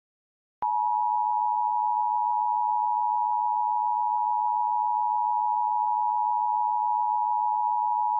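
EAS Attention Signal: two steady tones sounded together, near 853 and 960 Hz, held at an even level. It comes in with a click about half a second in.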